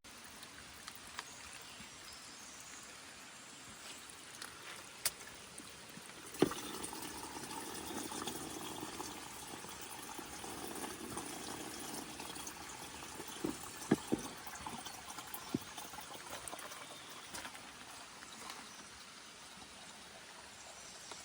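Spring water trickling and pouring steadily, a little louder after about six seconds in, with a few sharp knocks.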